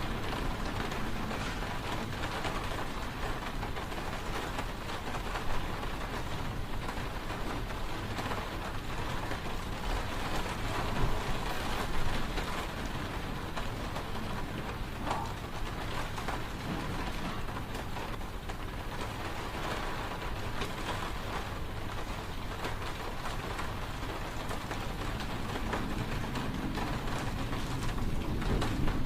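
Steady rain with wind: a dense, even hiss of rain over a low rumble, swelling a little now and then.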